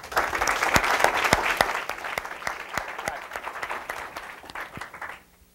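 Audience applauding. The applause starts at once, is strongest for the first two seconds, then thins out and dies away shortly before the end.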